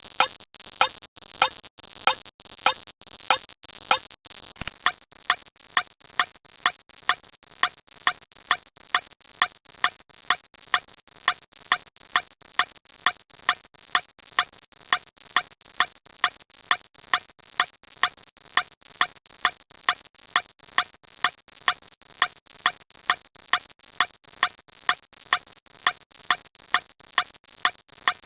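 A short, sharp squeak repeating in an even rhythm, about one and a half a second at first, then quickening to about two and a half a second from about five seconds in.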